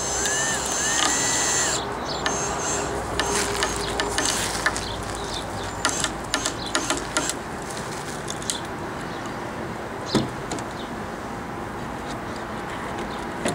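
Power drill driving a screw into old plywood, its motor whining and rising in pitch for the first two seconds or so. After that come scattered sharp clicks and knocks as the drill and boards are handled.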